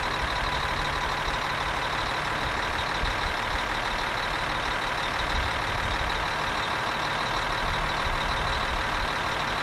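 Steady engine drone with a faint high whine, like a heavy truck engine idling.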